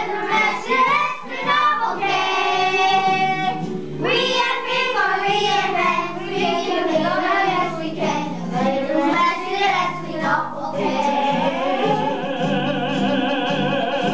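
Children's action song: child voices singing over recorded backing music, ending with one long held note with a slight wobble.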